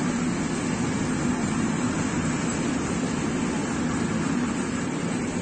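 Freight train of loaded flatcars rolling past close by: a steady rumble of steel wheels on the rails.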